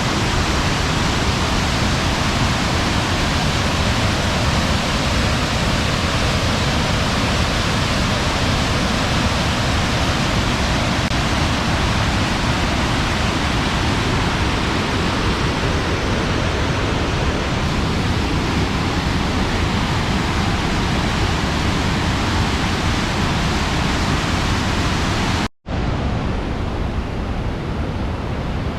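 Loud, steady rush of a waterfall heard up close at its base. About 25 seconds in the sound cuts out for an instant, then carries on a little quieter and duller.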